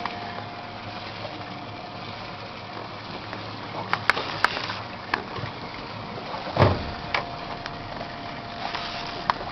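Boat engine idling steadily at sea, with a few sharp clicks about four seconds in and a thump at about six and a half seconds.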